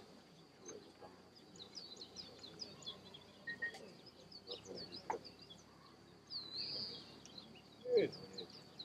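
Small birds chirping, many short high calls scattered through, over a steady high tone. A brief louder, lower sound comes near the end.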